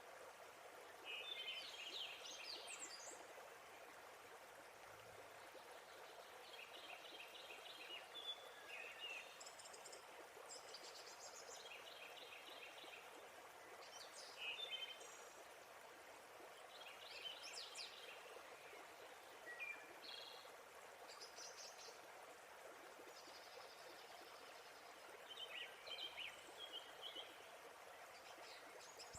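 Steady quiet rush of a waterfall, with songbirds singing short repeated chirping phrases every few seconds over it.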